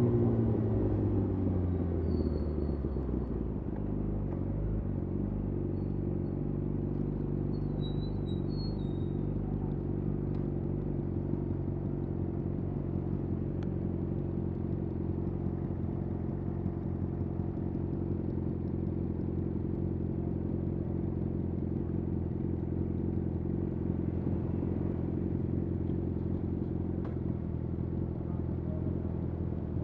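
Yamaha YZF R6 inline-four with a de-catted Akrapovic slip-on exhaust, its revs dropping over the first few seconds and then idling steadily.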